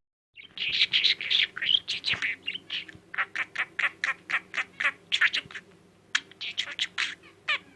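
Pet budgerigar chattering: a warbling run, then a rapid string of short chirps at about five a second, then more warbling near the end.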